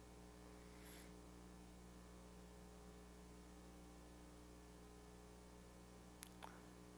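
Near silence: room tone with a faint steady electrical hum, and a couple of faint clicks near the end.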